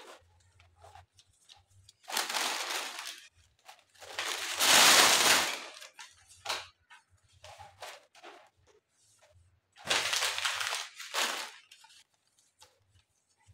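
Rustling and crumpling of papers and packaging being handled, in three bursts, the loudest about five seconds in.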